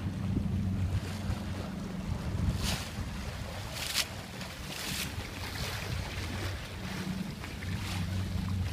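Wind buffeting the microphone over the rush of water along the hull of a Jeanneau Sun Odyssey 349 sailing under canvas, with a few short splashing hisses of waves against the hull in the middle.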